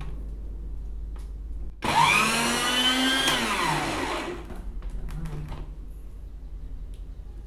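Electric blender motor switched on: it starts suddenly, whines up in pitch for about a second and a half, then winds down over about a second as it is switched off. This is the blender that the owner then says is broken.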